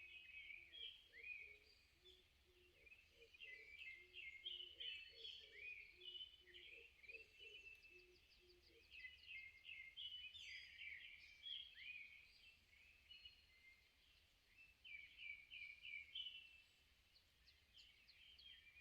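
Faint chorus of several wild songbirds, with overlapping chirps and short whistled phrases throughout. Through the first half a lower call repeats under them, then stops about nine seconds in.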